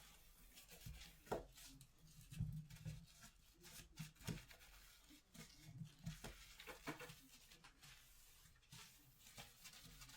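Faint household handling noises: scattered light knocks, clicks and rustles of objects being moved about, with a few sharper knocks.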